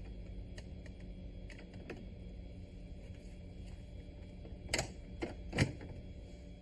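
Plastic clicks and knocks of the coffee machine's mixing-bowl parts and latch being handled and snapped into place, with three sharper clicks near the end, two of them loud. A steady low hum from the switched-on machine runs underneath.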